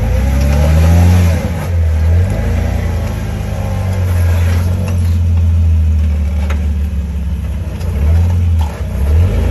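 Off-road vehicle engine revving up and down as it crawls over rocks, with a few short knocks partway through.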